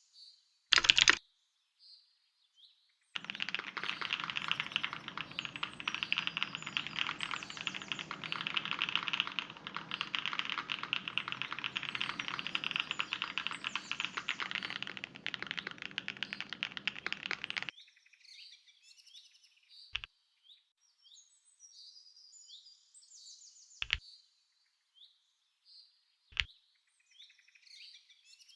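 Small birds chirping, then a long run of fast typing on a mechanical keyboard, a dense clatter of keystrokes that lasts about fifteen seconds and cuts off suddenly. After it the birds chirp again, with three single sharp clicks spaced a few seconds apart.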